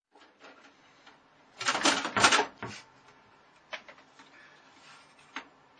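A cat scrambling up behind a computer tower, its claws scraping and knocking on the case. There is a burst of clattering about two seconds in, then a few single knocks.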